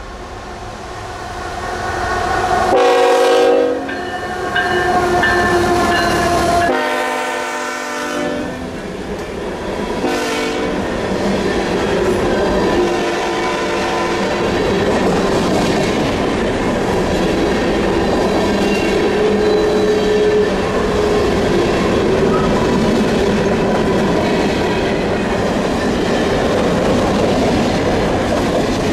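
A Canadian National freight train's locomotive horn sounds two long blasts and then a short one within the first ten seconds as the train arrives. Then comes the steady rumble and clatter of covered grain hopper cars rolling past on the rails.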